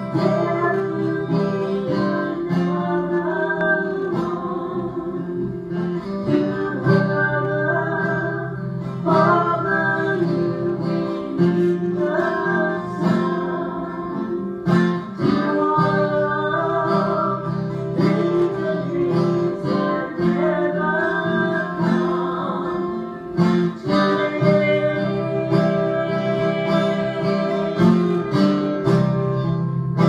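Acoustic guitar strummed in a steady rhythm while women sing along.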